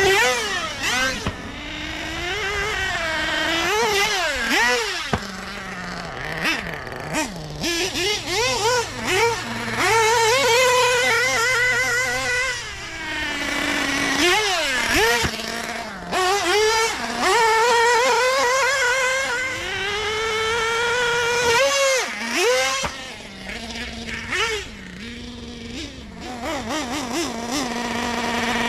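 1/8-scale nitro buggy's LRP .32 (5.2cc) nitro engine running hard, revving up and dropping back again and again with the throttle. The pitch wavers on the high runs, and several times it settles to a steady idle between bursts.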